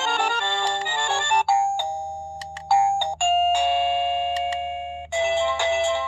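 XTU wireless doorbell chime receiver playing its built-in melodies one after another. A quick electronic tune gives way to a few held ding-dong tones and a long chord that fades out. A new tune starts about five seconds in.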